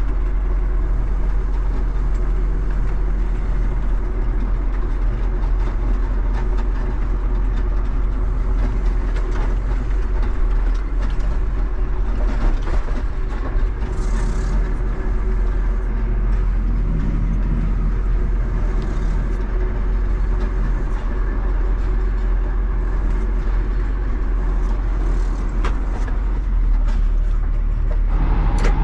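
John Deere farm tractor's diesel engine running steadily as the tractor is driven, with occasional light clatter.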